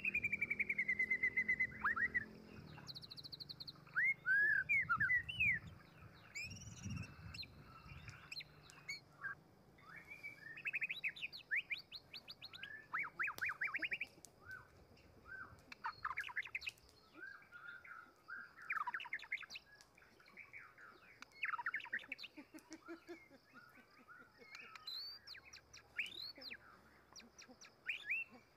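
Forest birds chirping in many short, quick calls scattered throughout, after a long falling whistled note at the start.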